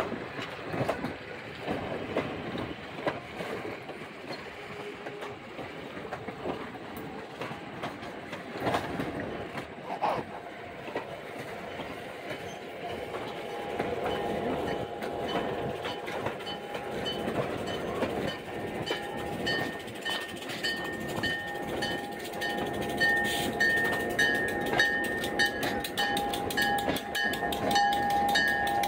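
A train running on rails, its wheels clicking over the rail joints, the clicks coming faster and louder near the end. From about halfway, steady high-pitched tones ring over the rumble.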